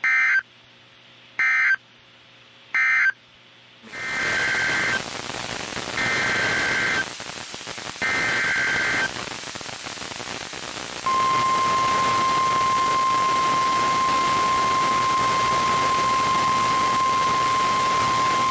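NOAA Weather Radio Specific Area Message Encoding (SAME) alert data: three short squawking bursts, the end-of-message code closing the previous warning. Then, over radio static, three longer squawks of the next warning's header, about a second each. About eleven seconds in, the steady 1050 Hz Weather Radio warning alarm tone begins and holds.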